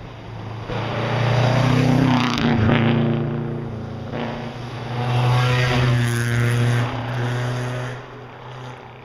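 Rally car engine passing at full throttle. It comes up loud about a second in, eases off around the middle, revs hard again, and then cuts off suddenly near the end.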